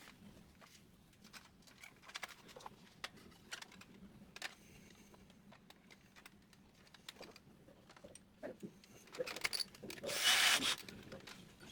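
Hands working on plastic laser-printer parts: scattered light clicks and small knocks, then a rough scraping hiss for about a second near the end.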